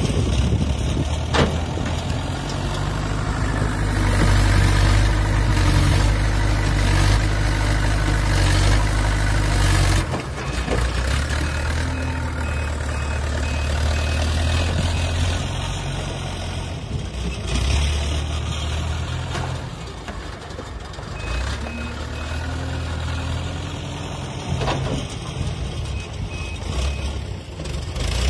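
Backhoe loader's diesel engine working under load as the front bucket scoops and lifts clay, rising and easing in surges, dropping off about ten seconds in and again near twenty. A faint, evenly pulsed high reversing beep sounds at times, and a few sharp knocks come from the bucket.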